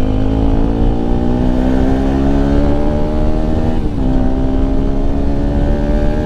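Bajaj Pulsar RS 200's single-cylinder engine pulling under acceleration. Its pitch climbs steadily, drops sharply at an upshift about four seconds in, then climbs again.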